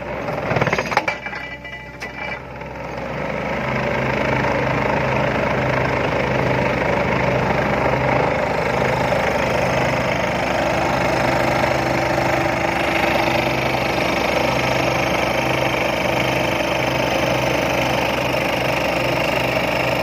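Excavator-mounted vibratory pile hammer shaking a steel sheet pile down into the ground: a loud, steady vibrating rattle with a low hum, over the excavator's engine. It comes up to full level about three seconds in, after a few knocks, then holds steady.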